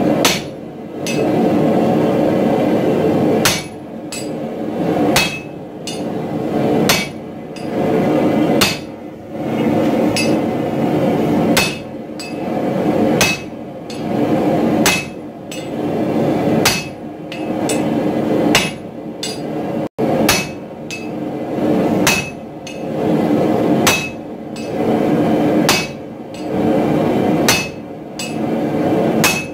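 Hand hammer striking hot steel on an anvil, forging a cross-pein hammer head held in tongs: a run of repeated blows with the anvil ringing, broken by short pauses about every two seconds.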